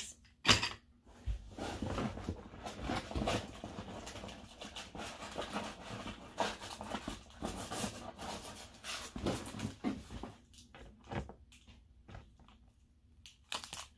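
Rustling and handling of small paper and plastic items such as pencils and stationery on a table, with scattered taps and clicks; the rustling thins out after about ten seconds.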